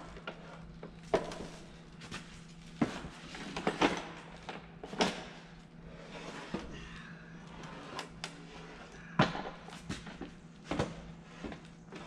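Irregular knocks and scrapes, loudest about one, three, four, five and nine seconds in, as a freshly rebuilt engine is pivoted and slid off a pallet onto a cart.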